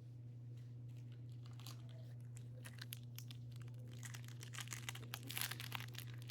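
Plastic foil wrapper of a baseball trading-card pack crinkling and tearing as it is handled and opened: faint at first, then louder and denser crackling for the last couple of seconds. A steady low electrical hum runs underneath.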